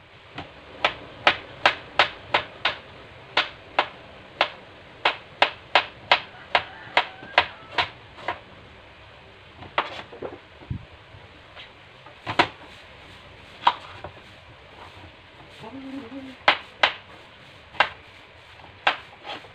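Kitchen knife slicing bamboo shoots on a plastic cutting board, each stroke a sharp knock. The knocks come quickly and evenly, about three a second, for the first eight seconds, then thin out to single chops every second or two.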